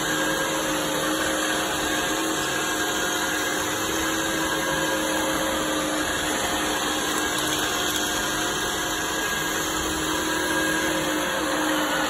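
iRobot Roomba 614 robot vacuum running on a hardwood floor: a steady whir from its vacuum motor and brushes, with a few faint steady tones and no change in level.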